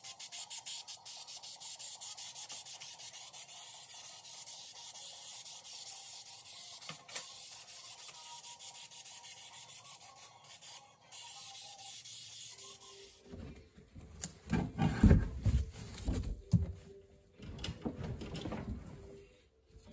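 Aerosol spray adhesive hissing from the can in long bursts onto the felt backing of a carpet panel, with a few short breaks. About 13 seconds in, the hiss gives way to louder, uneven rustling and thumping as the glued carpet is pressed and rubbed into place by hand.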